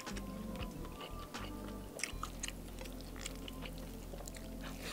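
Close-miked chewing of a soft, wet mouthful of beef and rice with gravy, full of short sticky mouth clicks and smacks. Faint background music runs underneath.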